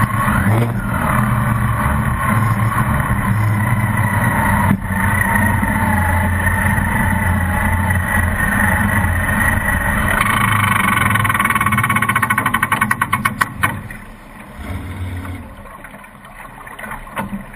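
Onboard sound of a circle-racing boat's engine running hard over rushing water and spray. About twelve seconds in, the engine note breaks into a rapid run of loud pops for a second or so and then stops, leaving the wash of water as the boat coasts.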